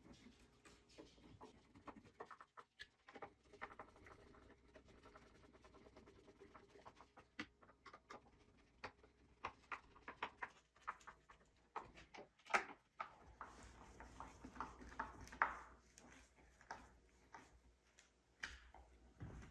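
Hand screwdriver driving screws into the base of a Klipsch RF-7 III tower speaker: faint, scattered clicks and scrapes of the tool and screws, with a couple of sharper clicks past the middle.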